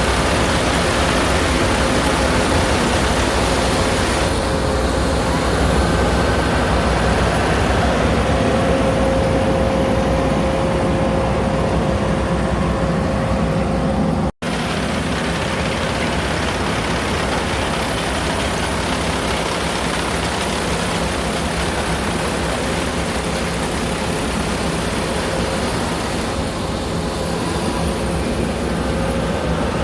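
Rice combine harvester running steadily, its engine and threshing gear holding a constant pitch. The sound breaks off for an instant about halfway through.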